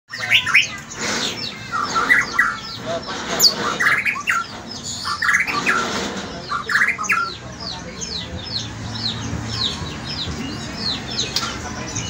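White-rumped shama singing a varied song of whistles and chattering phrases. About seven seconds in, it turns to a fast run of high, short downward-sweeping notes.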